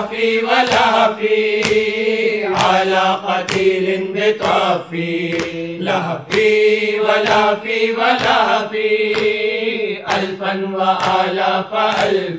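Voices chanting a Shia noha lament in chorus over a steady beat of sharp slaps, a little under two a second: matam, the rhythmic chest-beating of mourners that keeps time to the recitation.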